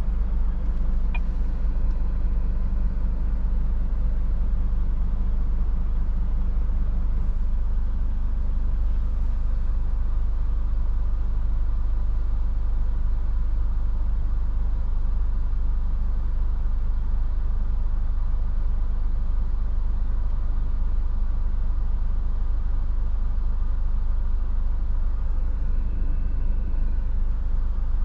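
Scania S450 truck's 13-litre straight-six diesel idling, heard inside the cab as a steady low rumble.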